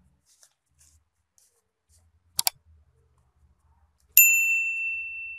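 A sharp double click about halfway through, then a single bell ding near the end that rings on and slowly fades. It is the sound effect of an on-screen subscribe-and-notification-bell animation.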